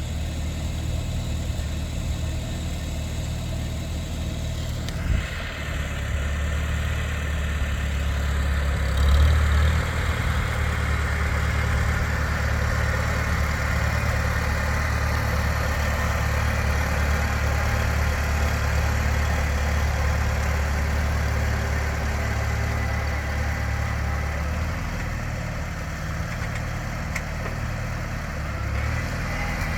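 Farmall Super C tractor's four-cylinder gasoline engine running steadily at idle. A sharp knock comes about five seconds in, the engine is briefly louder around nine seconds, and its low note eases slightly near the end.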